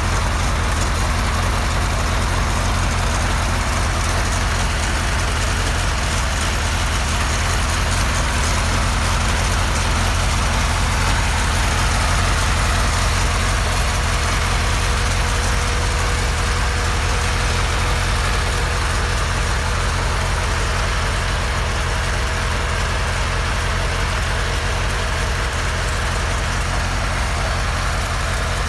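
Homemade helicopter's engine running steadily, with a strong low drone and little change in level.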